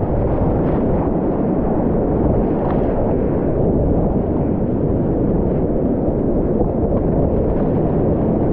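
Whitewater rapids rushing around a kayak: a loud, steady, muffled roar of fast water, with small splashes from the paddle now and then.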